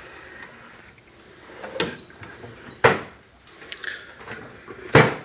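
Steel tool chest drawers on ball-bearing slides being pulled open and pushed shut, with sharp metal clacks, the two loudest about three and five seconds in, as the drawers click into their latched, closed position.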